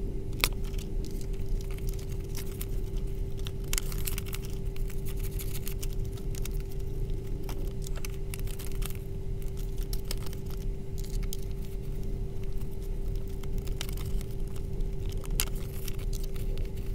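Paper banknotes rustling and crinkling as they are picked up and slid into a binder wallet's plastic pockets, in scattered short crackles, over a steady low hum.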